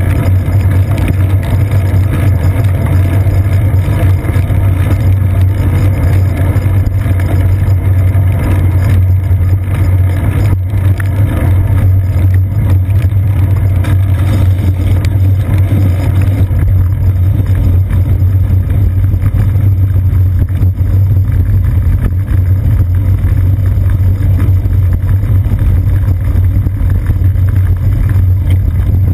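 Steady, loud low rumble of a bicycle ride on a wet path, picked up through a seat-post-mounted GoPro Hero 2 in its sealed housing: road vibration carried up the mount, with wind and tyre noise over it.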